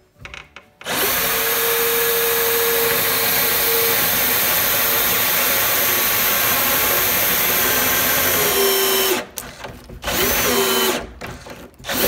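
Cordless drill boring a 1-inch hole into the wooden edge of a door. It starts about a second in and runs steadily for about eight seconds. Then it stops, runs briefly again, and starts once more near the end.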